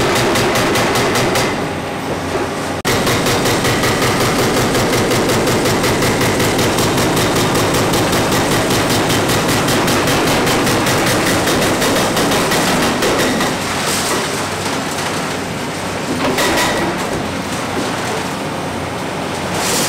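Excavator-mounted hydraulic breaker hammering concrete, with the Hitachi Zaxis 490 excavator's engine running under it: rapid, evenly spaced blows. The hammering stops briefly about two seconds in, starts again abruptly, and turns less even in the second half.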